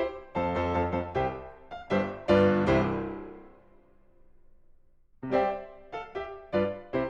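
Background piano music: a run of short notes ends on a chord that rings and fades away, a brief pause, then the tune starts again.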